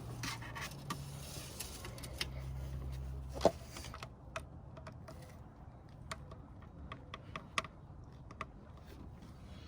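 Handling noise: scattered small clicks, taps and rubbing, with one sharp click about three and a half seconds in, over a low hum that stops at that point.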